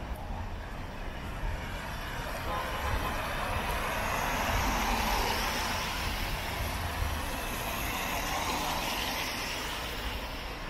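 City traffic on a wet road, with a vehicle's tyres hissing as it passes, swelling to a peak in the middle and fading again, over a low rumble.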